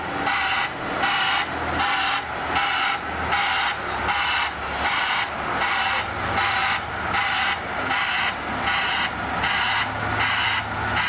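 A machine's warning alarm beeping steadily about twice a second, over the low hum of a heavy diesel engine running.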